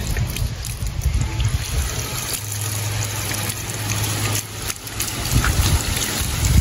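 Water running and trickling, over a low rumble, with a steady low hum for about two seconds in the middle that cuts off suddenly.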